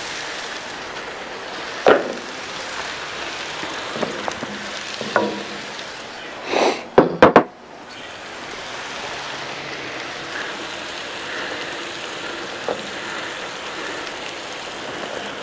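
Steady sizzle of chicken, peppers, onions and mushrooms frying on a flat-top Blackstone griddle with the burners on low. A few short knocks, and a louder brief clatter a little under halfway through.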